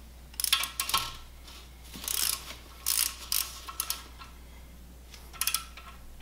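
Ratchet of a digital torque wrench clicking in short bursts, about five times, as the outer M8 bedplate bolts of a BMW N54 engine are run down and pre-torqued to 10 Nm with an E12 socket.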